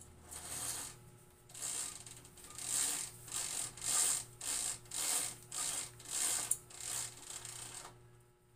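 Roller blind's bead chain pulled hand over hand, the clutch mechanism rattling with each pull: about a dozen rasping strokes, roughly two a second, stopping shortly before the end.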